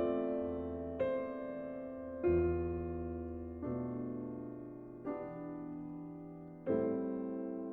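Slow piano music: a chord struck about every second and a half, each one ringing and fading before the next.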